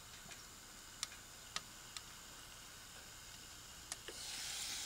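Wood fire crackling inside a Winnerwell Woodlander stainless wood stove, a few sharp pops about a second apart. Near the end the lid comes off the frying pan on top and a sizzling hiss from the pan rises.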